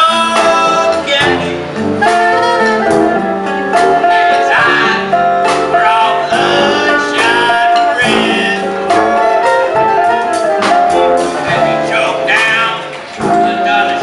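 Small street jazz band playing an upbeat tune: saxophones, including a bass saxophone, carry the melody over drums with a steady beat.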